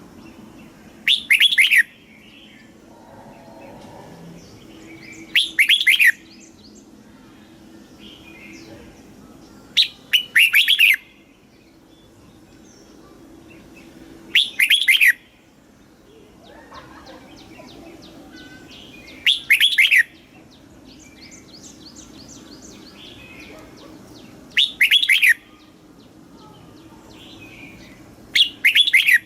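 Red-whiskered bulbul singing short, loud song phrases of quick sweeping notes, seven in all, about one every four to five seconds. Fainter chirps from other birds fill the gaps.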